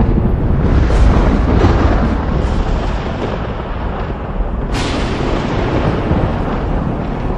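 Thunder rumbling continuously, with a few rolling peals and a sharper crack a little under five seconds in that fades back into the rumble.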